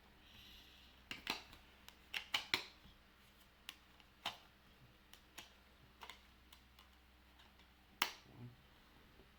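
Blu-ray box-set packaging being handled: a brief rustle, then a run of sharp clicks and taps, thickest between one and three seconds in, with a last loud click about eight seconds in.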